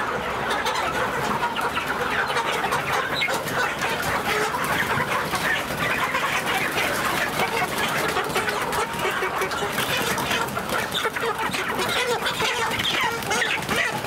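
A large flock of broiler chickens clucking and squawking in a dense, unbroken chorus, with wings flapping, as birds are grabbed and carried by the legs during catching.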